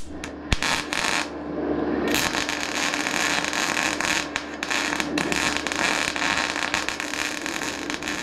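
Wire-feed MIG welder arc crackling and sizzling as it welds thin sheet steel: a few short blips near the start, then one continuous run of about six seconds.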